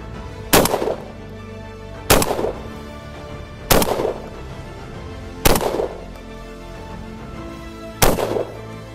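Emperor Arms Mogul Ultra semi-automatic 12-gauge shotgun firing five shots, about one and a half seconds apart at first, with a longer pause before the last. Each shot is a sharp report with a short echo after it, over background music.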